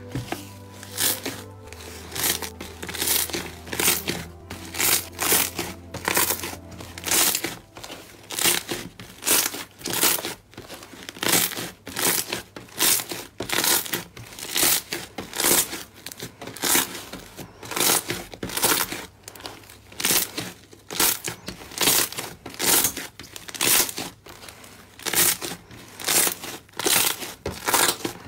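Thick, fluffy slime being pressed and kneaded by hand, giving a crackly, crinkling squish with each press, about one to two presses a second. Soft, low background music sounds under it for the first several seconds, then stops.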